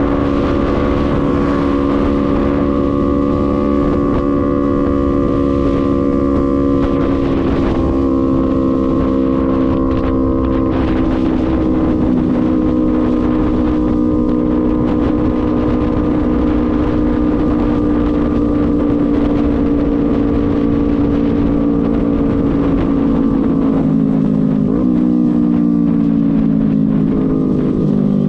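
Sport motorcycle engine running at a steady cruise, heard from the rider's seat with wind rushing over the microphone. The engine note sinks slowly, drops in pitch abruptly about 24 seconds in, then climbs again near the end.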